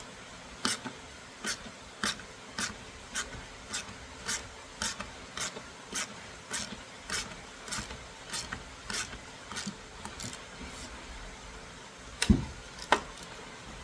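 Socket ratchet clicking steadily, about two clicks a second, as small bolts are loosened by hand, followed by two louder knocks near the end.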